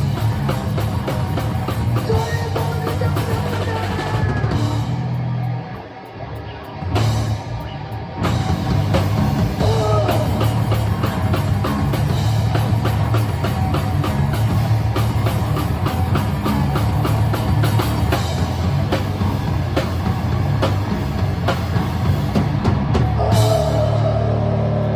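Live rock band playing: drum kit, bass and guitars. The band drops back briefly about five seconds in, then comes back in at full volume.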